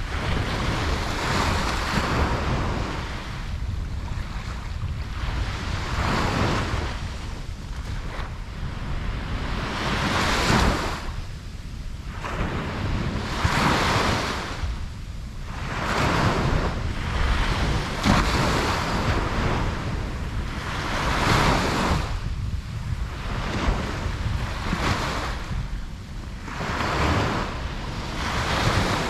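Ocean waves breaking and washing up a beach, each swell of surf hiss following the last every two to three seconds over a steady low rumble, with wind buffeting the microphone.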